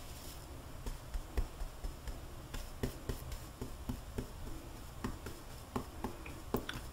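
A 1-inch paint brush being loaded with paint on a palette: soft, irregular taps and clicks of the brush against the palette.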